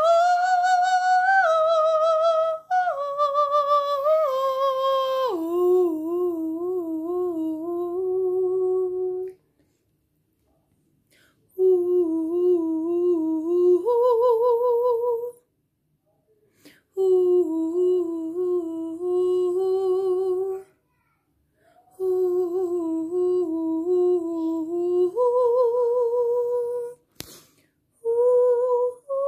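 A voice humming long wordless tones with a slow vibrato, in phrases of a few seconds separated by short pauses. The first phrase steps down in pitch; the later ones hold a low note and then step up to a higher one.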